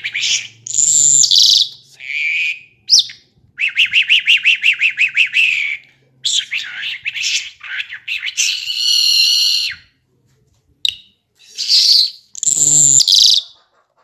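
Caged lark singing a varied song: loud whistled and buzzy phrases broken by short pauses, including a fast trill of about a dozen notes.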